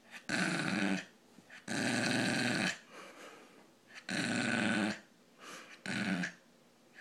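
Brussels pug dog making a repeated growl-like grunting noise: four loud, rough sounds of about a second each, with fainter ones in the gaps between.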